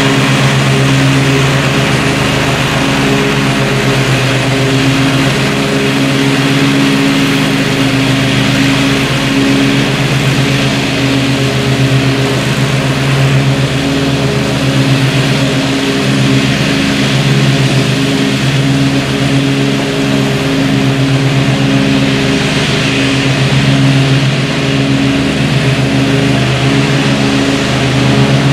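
Zero-turn riding mower's engine running steadily, blades engaged, cutting grass.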